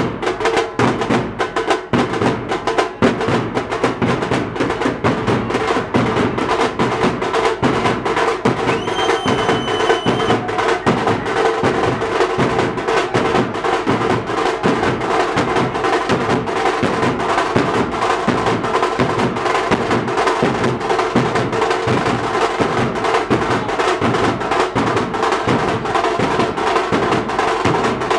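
A group of large shoulder-slung bass drums and a smaller frame drum, beaten with sticks in a fast, steady, driving rhythm. A brief high steady tone sounds over the drumming about nine seconds in.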